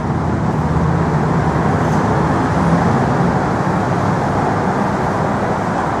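Steady city street traffic, a continuous rumble of passing vehicles.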